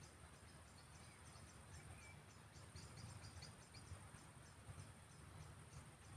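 Faint evening field ambience: insects chirping in quick, irregular high pulses over a steady high insect hiss, with one short bird note about two seconds in and a low steady rumble underneath.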